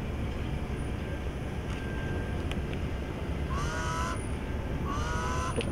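Steady outdoor crowd and wind ambience, with two short harsh pitched blasts, one a little past halfway and one near the end.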